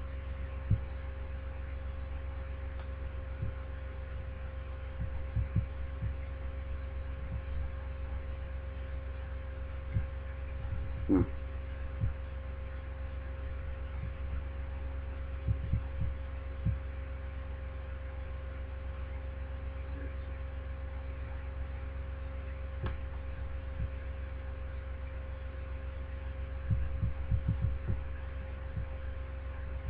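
Steady electrical hum with a low rumble under it and a few steady tones, broken by scattered soft low thumps, a quick cluster of them near the end.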